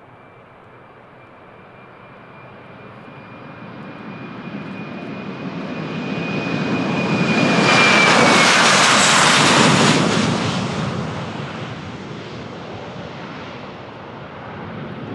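Embraer KC-390's two IAE V2500 turbofan engines in a passing flypast. The noise swells to a peak about eight seconds in and then fades, and a high whine drops in pitch as the aircraft goes by.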